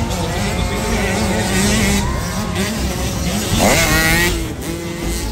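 Several 65cc two-stroke motocross bikes running, their engines revving up and down over one another. About three and a half seconds in, one engine revs up sharply.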